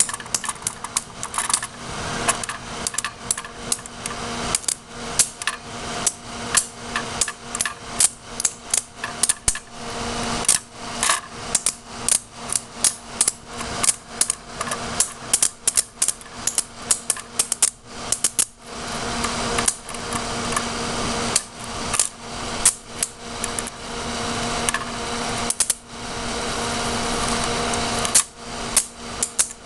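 Electric arcs crackling and snapping again and again as a wire carrying 13.8 V from a 23 A power supply is touched to the CPU socket pins of a motherboard. The sharp snaps come irregularly, several a second, with a few stretches of denser, steadier crackling.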